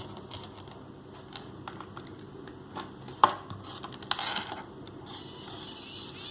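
Light clicks and handling noise from earphones and their cable being handled and set up for a sound test, with one sharp click about three seconds in. A faint steady hiss comes in about five seconds in.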